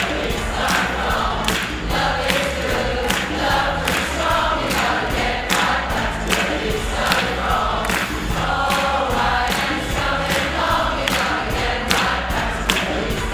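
Choir singing live, with a steady beat under the voices.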